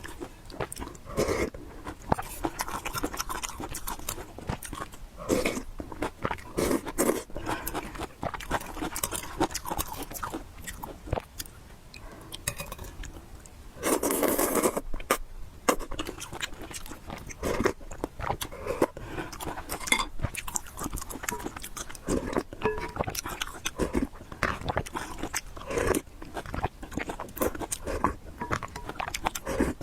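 Close-miked eating sounds: steady chewing with frequent wet mouth clicks and smacks, and a louder, longer noisy sound about halfway through.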